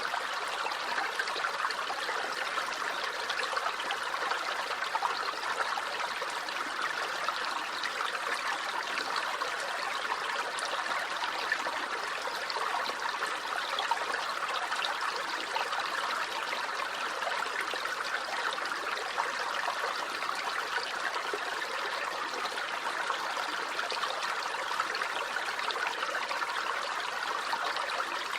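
Small stream flowing and trickling over stones, a steady babbling rush of water.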